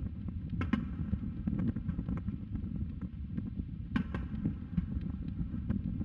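Distant aerial firework shells bursting: a quick pair of sharp bangs under a second in and another pair about four seconds in, over a steady low rumble.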